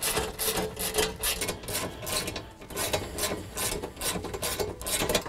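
Hand ratchet with an 8mm socket clicking in a steady run of short strokes as it tightens screws into a steel knee pan panel.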